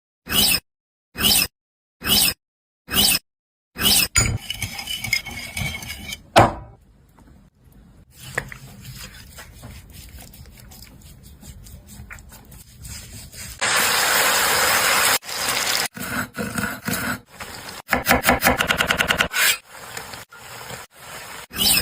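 Cut-together kitchen preparation sounds: utensils scraping and clinking against dishes. There are five short bursts with silent gaps at the start, a louder hiss lasting about a second and a half in the middle, and a quick run of rapid ticks later on.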